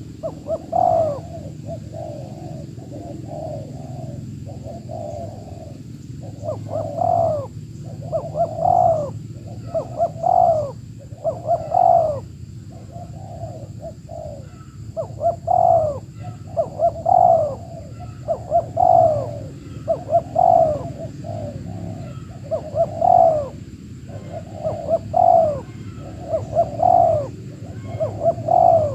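Spotted doves (tekukur) cooing over and over: soft, low coo phrases run on continuously, with a louder, downward-curving note every second or two.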